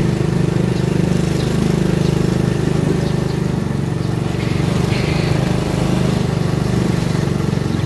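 Motorbike engine running steadily under way, heard from the moving bike that carries the recorder, as a loud, even low hum.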